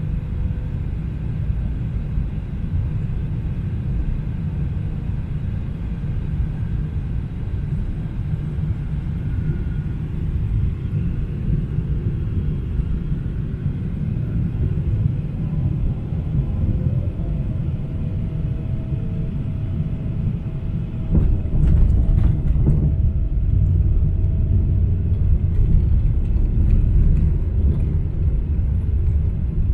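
Boeing 777-300ER cabin noise: a steady low rumble from engines and airflow. About two-thirds of the way through, a few knocks come and the rumble grows louder and rougher: the wheels touching down and the landing roll on the runway.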